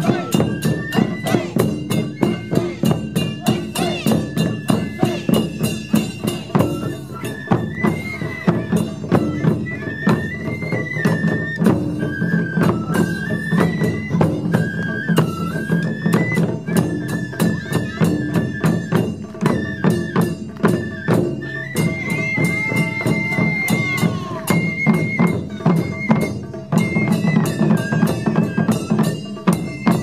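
Japanese taiko ensemble playing: shinobue bamboo flutes carry a stepping melody over rapid, continuous drumming on nagado and okedo taiko. About two-thirds of the way through, the flute holds a higher steady note for a few seconds.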